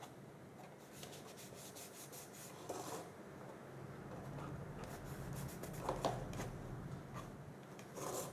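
Hands handling and rubbing small pieces of cardstock and paper, with scattered light clicks and scrapes, while glue is applied to a piece for the box.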